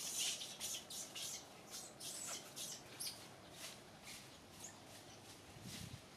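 Dry leaf crackling and rustling as a baby macaque handles and chews it: many short, irregular crackles, thickest in the first three seconds and sparser after.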